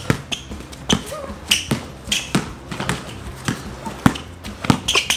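Basketball being dribbled on a hard court, bouncing about twice a second.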